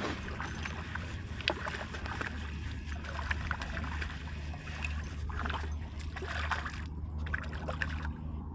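A hooked fish splashing and thrashing at the water's surface while being played on a spinning rod, with scattered irregular splashes and ticks over a steady low rumble.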